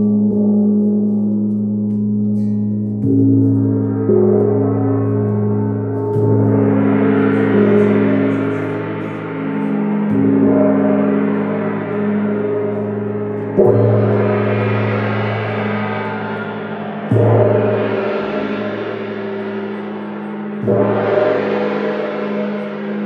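Large gongs being struck with mallets: a dense, sustained drone of low tones. Fresh strikes swell the sound every three or four seconds and then die away slowly. The sharpest strike comes about halfway through.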